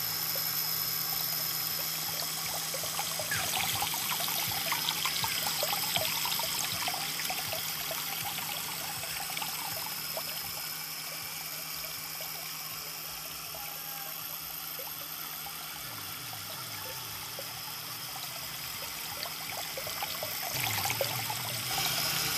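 Water pouring and splashing steadily from the outlet pipe of a small belt-driven axial-flow pump into a tank, with the steady hum and high whine of the model tiller's small motor driving it.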